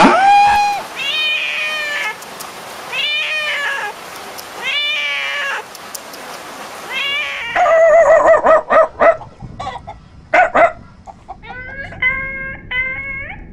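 A series of cat meows: the end of a held moo at the very start, then several drawn-out meows, a choppier stretch of calls midway, and a quicker run of short mewing calls near the end.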